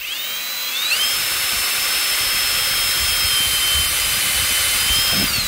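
Kobalt cordless drill drilling out a broken bolt in an engine block: the motor whine climbs to full speed about a second in, holds steady, and drops back near the end. The bit is cutting through the softer part of the bolt, past its weld-hardened end.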